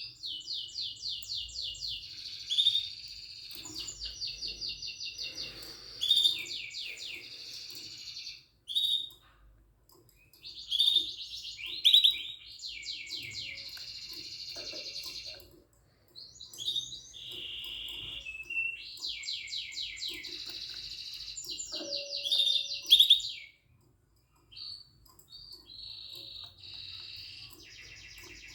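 Yellow mosaic canary song: several long phrases of fast, even trills and rolls, separated by short pauses.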